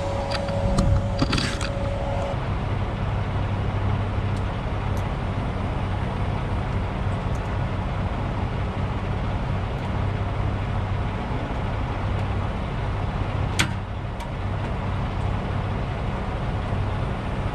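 Truck engine idling steadily, with a thin whine that stops about two seconds in and a single sharp click near the end.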